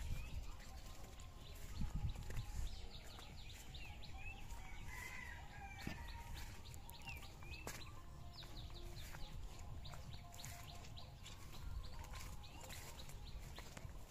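Birds chirping repeatedly, short high calls scattered throughout, over a low rumble that is heaviest in the first few seconds.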